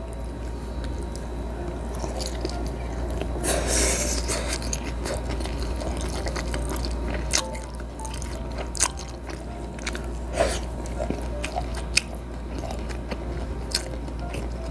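Close-miked chewing and biting of grilled food, with wet mouth sounds and many scattered sharp crisp clicks, over a steady low hum.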